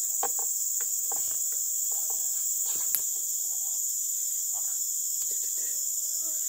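Steady, high-pitched chorus of insects, without a break, with a few faint clicks and taps over it and one sharper click about three seconds in.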